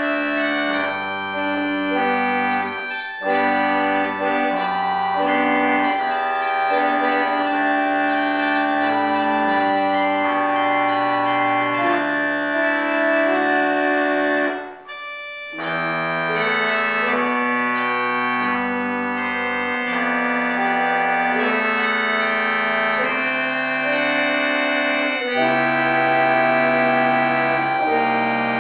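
Church organ playing a slow piece of held chords over a moving bass line, with a brief pause between phrases about halfway through.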